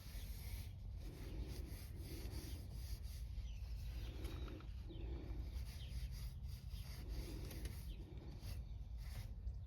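A cloth wiping a truck's interior door panel, rubbing in repeated back-and-forth strokes over a steady low rumble.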